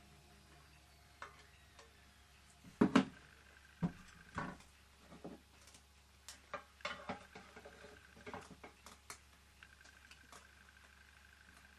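Knocks and clicks of small metal model steam engine parts being handled and set down on a workbench. The loudest is a pair of sharp knocks about three seconds in, followed by scattered lighter clicks.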